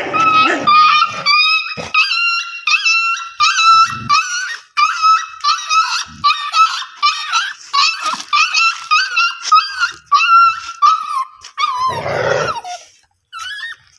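Street puppies whining in a fast string of short, high-pitched cries, about two a second, that stop a little before the end. These are hungry puppies crying for food at feeding time.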